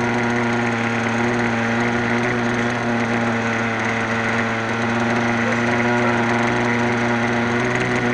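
X-Cell 60 radio-controlled helicopter's .60-size nitro glow engine and rotor running at a steady speed, heard from on board. The pitch holds level throughout.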